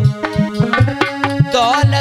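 Devotional bhajan music: a tabla beat in quick strokes under sustained melody notes, with a wavering, bending melodic line about one and a half seconds in.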